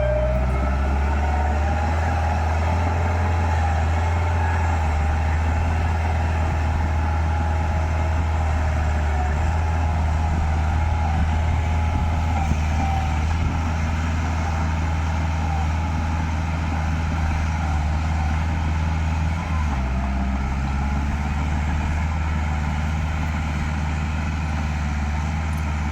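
Heavy diesel engine of earthmoving equipment, either a bulldozer or a dump truck, running steadily with a deep, even drone. Its note shifts slightly about two-thirds of the way through.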